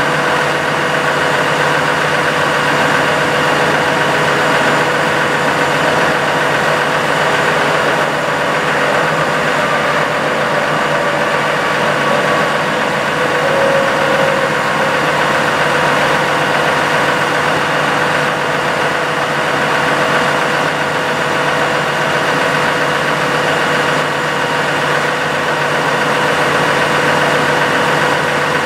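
Dodge Ram 5500's 6.7-litre Cummins turbo-diesel idling steadily, powering the hydraulics of the Versalift aerial boom as it is operated. A constant hum with a steady whine over it.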